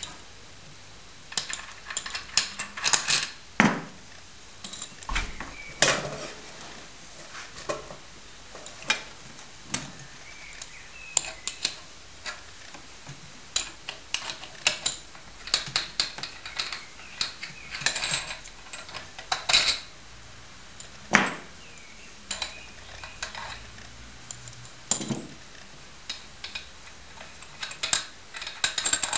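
Hand tools clinking and scraping against the metal body and fittings of a JD-4 oil diffusion pump as it is dismantled: irregular sharp metallic clicks and clinks, some in quick clusters.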